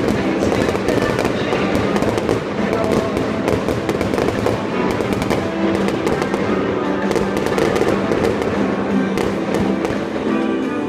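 Aerial fireworks bursting and crackling without a break, a dense rattle of small pops. Music plays underneath.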